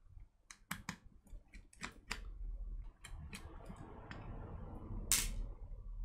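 Small screwdriver taking out the screws that hold a Western Digital hard drive's circuit board: irregular small clicks and scrapes of the bit in the screw heads, with a louder click about five seconds in.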